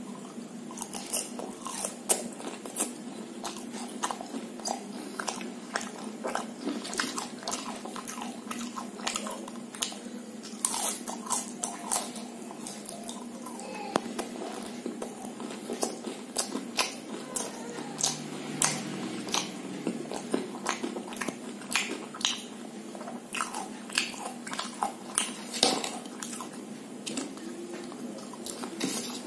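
A person chewing and crunching fried snacks close to the microphone: an irregular run of crunches and wet mouth clicks.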